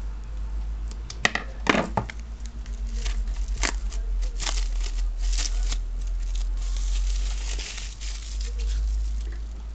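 Clear plastic shrink-wrap being torn and peeled off an iPhone 3GS box: sharp crackles for the first few seconds, then a stretch of steady crinkling as the film comes away. A steady low hum runs underneath.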